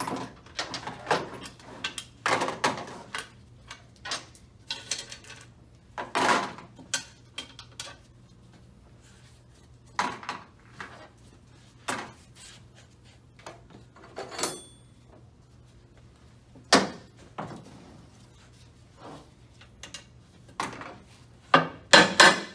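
Irregular metal clunks, taps and clatter from work on the aluminium case of a Nissan JF011E CVT transmission as its cover bolts are taken out, with a cluster of louder knocks near the end.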